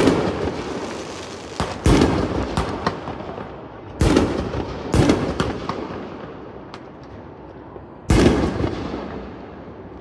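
1.5-inch preloaded single-shot mortar shells firing: a loud bang every second or two, each trailing off into a long rumbling echo, the last about eight seconds in.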